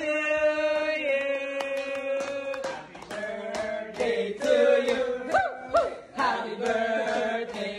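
Voices chanting or singing in long held notes, with sharp claps scattered through.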